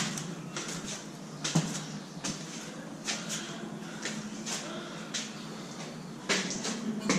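Footsteps knocking up stairs inside a stone tower, irregular steps with a sharper knock about a second and a half in and a cluster near the end, over a steady low hum.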